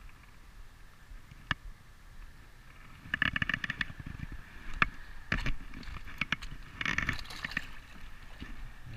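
Footsteps crunching and clattering over loose shale and gravel, starting about three seconds in, with a short splash at the water's edge as a small striped bass is let go.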